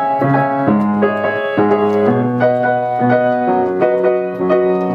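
Keyboard music: chords and a bass line played on a piano or electric piano, changing about every half second.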